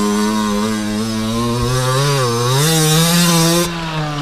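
Two-stroke dirt bike engine running at high revs, the pitch dropping briefly about halfway in as the throttle is eased and rising again.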